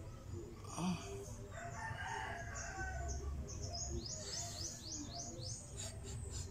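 High-pitched squeaking calls from a grounded fruit bat: short chirps that rise in pitch, with a quick run of about six near the end. A longer, lower call sounds in the background around the middle.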